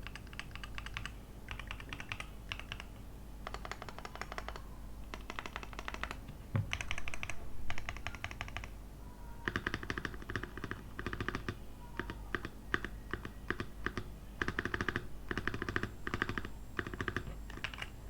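Typing on a Keychron Q1 (version 1) mechanical keyboard with Ajazz Green Plum switches and double-shot ABS keycaps: fast runs of key clacks in bursts with short pauses, steady, rapid typing from about halfway through, and one louder low thump about six and a half seconds in.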